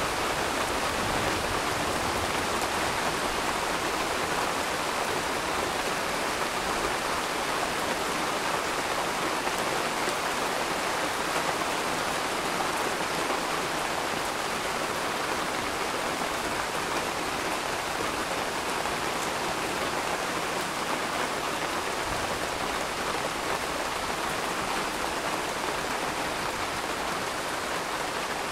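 Rain falling steadily, an even hiss that holds at the same level throughout, with no thunder.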